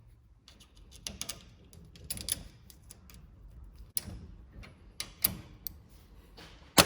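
Scattered sharp metal clicks and knocks of hand work on a combine grain head's knife and guards, with one loud clank just before the end.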